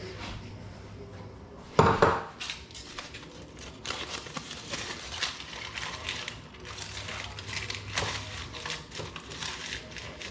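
Kitchen clatter: one loud knock about two seconds in, then a run of light clinks and taps of dishes and utensils being handled, over an intermittent low hum.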